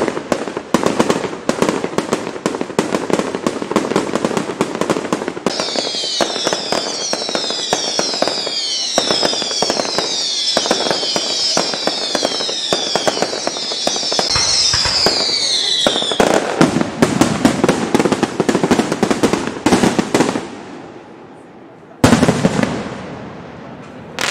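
Aerial fireworks display: dense, rapid crackling and popping of bursting shells, with many high whistles falling in pitch from about six to sixteen seconds in. The crackle thins out near twenty seconds, and about two seconds later comes a single loud bang.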